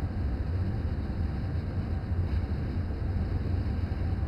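A steady low mechanical hum with a rushing hiss over it, running evenly without change.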